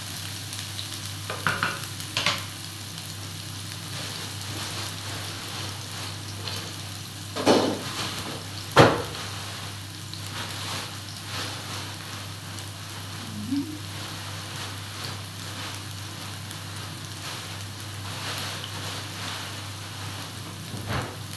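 Diced onion and garlic sizzling steadily in a stainless-steel electric skillet, over a steady low hum. A wooden spatula stirs and scrapes the pan in the first couple of seconds, and two sharp knocks come about 7½ and 9 seconds in, the second the loudest sound.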